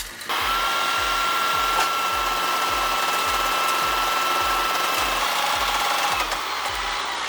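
A powered machine running steadily with a high, even whine, over a low thump repeating about twice a second; the whine drops away about six seconds in.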